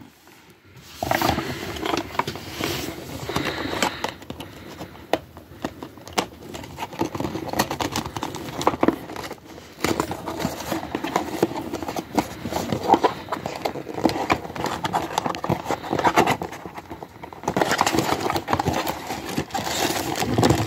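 A small cardboard mystery box being handled and opened by hand: packaging rustles and scrapes, with many small clicks and crackles, starting about a second in.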